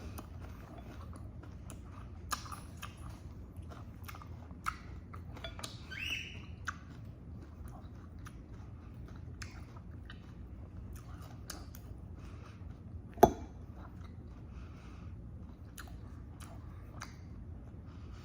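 Close-miked chewing and biting during a mukbang meal, with scattered small clicks and crunches over a steady low hum, and one sharp knock about 13 seconds in.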